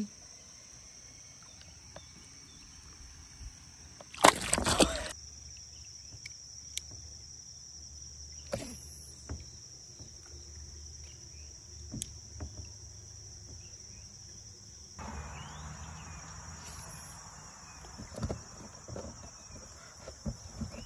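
Insects droning steadily at a high pitch. About four seconds in there is one loud, brief noise, a few scattered clicks follow, and a soft rushing hiss joins from about fifteen seconds in.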